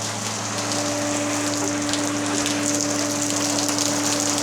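Rain pouring down, a dense steady hiss of countless drops, with a steady low hum underneath.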